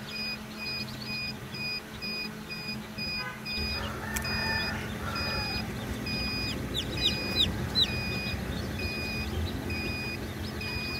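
Newly hatched chicks peeping, with a few loud, sharp peeps about seven seconds in, over a steady pattern of repeated short electronic beeps and a low hum.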